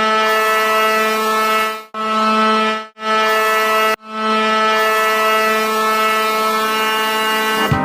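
Hockey goal horn, a steady low air horn, sounding in separate blasts: three shorter ones, then a long one held about four seconds.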